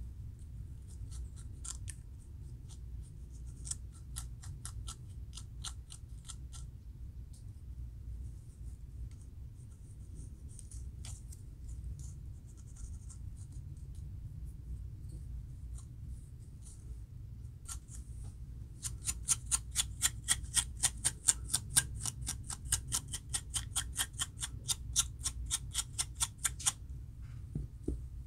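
Scratching at a dry, flaky scalp between locs to lift dandruff, in short runs of rapid strokes. The longest and loudest run, about five strokes a second, starts a little past the middle and stops shortly before the end. A steady low hum sits underneath.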